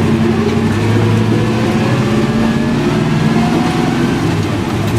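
Engine of a 1963 Chevrolet C30 one-ton truck running under way, its pitch rising slowly as the truck accelerates.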